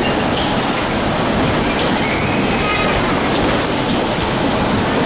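Bumper cars running around the rink: a steady loud rumble and rattle, with a short squeal about two seconds in.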